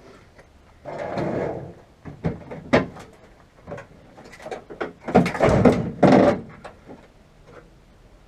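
Sheet metal from a stripped car body shell scraping and knocking: a short scraping burst, a few sharp knocks, then a longer, louder scrape with clanks.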